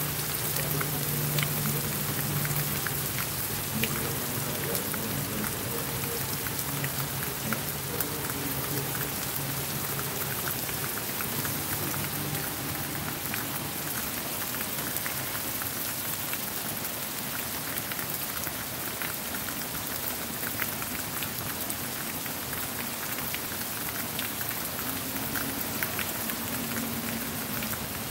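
Rain falling steadily on a paved forecourt and driveway: a dense, even hiss of rain on hard wet ground, with scattered sharper drop ticks.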